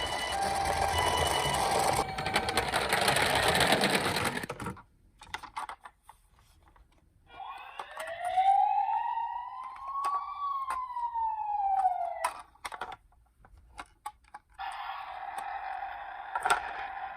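Toy emergency-vehicle minicar's electronic siren: one slow wail that rises for about three seconds and falls away, with small clicks of the toy being handled, and a steady siren tone starting a couple of seconds before the end. It opens with a short jingle and a rushing noise that stops about five seconds in.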